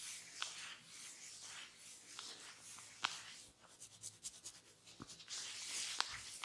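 Hands rubbing over skin and hair in a head massage: a faint, scratchy rustling, with a few sharp clicks scattered through it.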